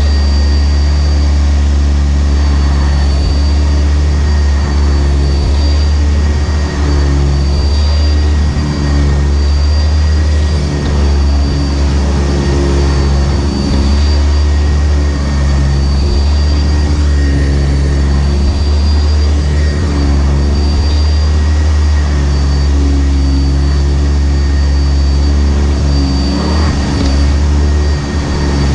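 Sanitaire SC679J upright vacuum cleaner running steadily at close range: a low motor hum with a thin high whine on top, dipping slightly now and then as it is worked.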